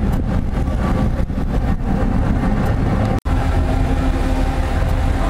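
Engines of the ferry Bonaria running before departure: a steady low rumble with a constant hum over it. A brief gap about three seconds in breaks it.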